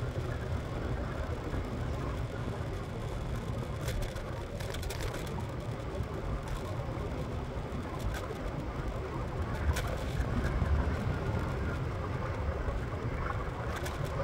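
A scooter riding along a road: steady wind and road rumble on the microphone, with a few scattered clicks.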